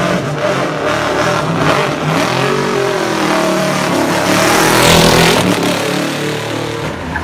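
Nissan GT-R race car accelerating hard past at full throttle, its engine note rising and falling. The sound swells to its loudest as the car goes by about five seconds in, then fades as it pulls away.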